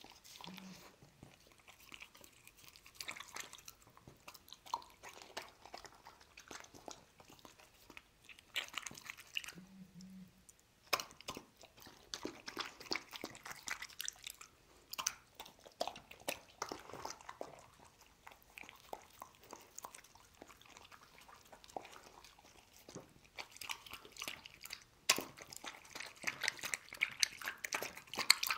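A dog eating chicken soup from a ceramic bowl: wet lapping of the broth and chewing of the soft meat chunks, in irregular smacks and slurps with a few sharper clicks, the loudest near the end.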